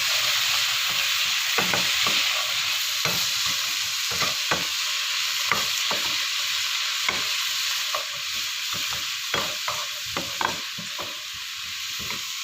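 Vegetable filling sizzling in hot oil in a pan while it is stir-fried, with a spatula scraping and clicking against the pan every second or so. The sizzle eases a little in the second half.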